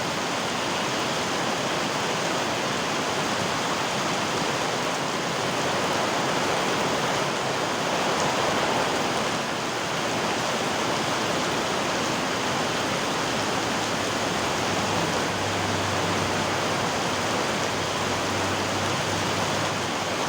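Heavy rain falling steadily: an even, unbroken rushing hiss of rain and running water. A low hum comes in about three-quarters of the way through.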